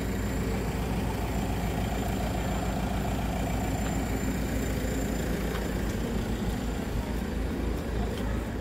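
Steady low hum of an idling engine.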